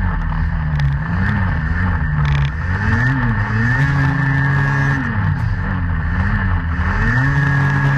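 Snowmobile engine revving up and down over and over as the throttle is worked, its pitch rising and falling about once a second.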